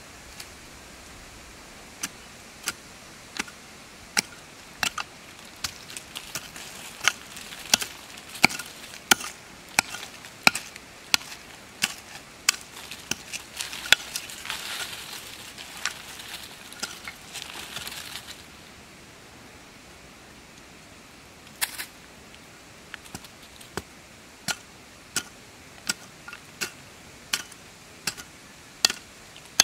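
A small hand digging tool striking into dry soil, a sharp chop about once or twice a second, with scraping and rustling of loose dirt through the middle stretch.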